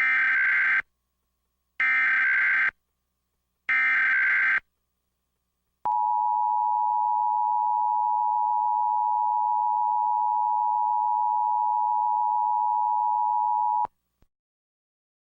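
Emergency Alert System alert tones: three short bursts of SAME header data, about two seconds apart, then the steady two-tone EAS attention signal held for about eight seconds and cut off sharply, the standard opening of an emergency alert.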